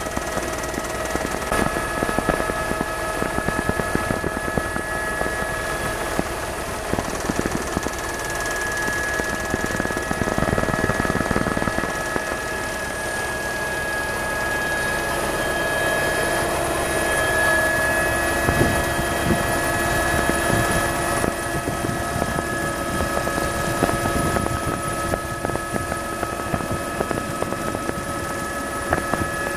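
Tour helicopter's engine and rotor running steadily, a continuous drone with a few steady whining tones held throughout.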